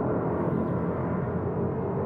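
Jet airliner passing overhead: a steady low rumble.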